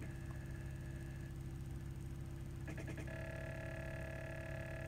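MAC 3-port electronic boost control solenoid being pulsed by the ECU's test output: a few quick clicks about three seconds in, then a steady electric buzz, over a constant low hum.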